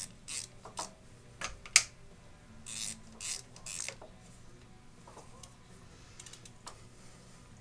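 Ratcheting hex driver tightening the set screws on a milling-machine tool holder: a run of short ratcheting rasps and clicks, with one sharp click about two seconds in, dying down to faint ticks in the second half.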